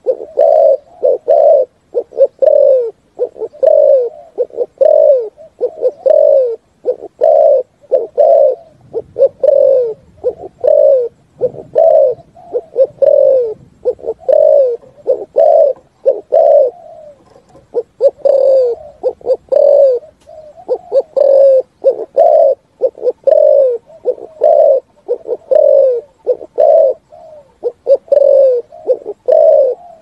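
Spotted dove giving its 'thúc gù' call: a long, unbroken run of short, low coos, about one and a half a second.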